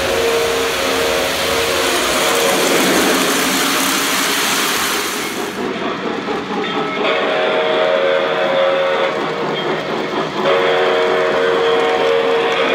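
A model steam locomotive's electronic steam whistle (Lionel RailSounds) blowing long chime blasts: one at the start, then two more about seven and ten and a half seconds in, over the steady rumble and clatter of die-cast O-gauge locomotives and cars rolling on three-rail track.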